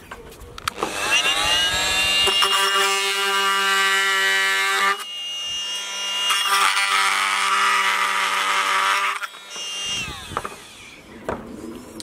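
Oscillating multi-tool spinning up with a rising whine about a second in, then running steadily as its blade cuts into a plastic car alarm siren housing, changing briefly about five seconds in and winding down near the end. A few clicks of handling follow.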